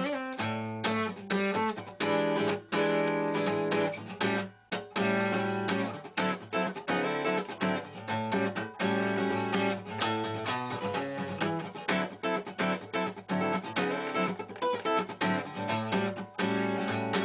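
Background music played on guitar, with steady rhythmic picked and strummed notes and a brief break about four and a half seconds in.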